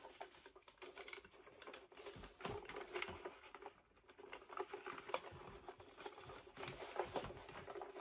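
Faint, irregular clicks and rustling of hands working on the plastic parts and fabric of an animated Santa figure while taking it apart, over a faint steady hum.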